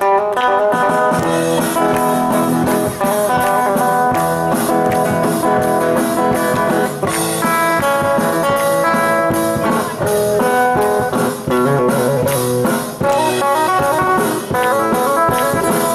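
Live guitar solo: quick runs of single plucked notes, with the band's lower backing parts playing underneath.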